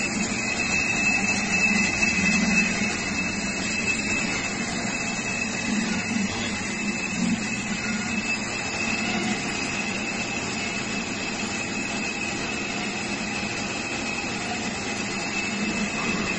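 Electric hamburger bun slicer running: a steady motor and belt whir with a constant high whine.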